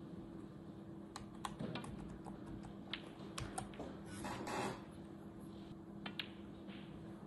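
A dozen or so light, irregular clicks over a steady low hum, with a brief rustle about halfway through.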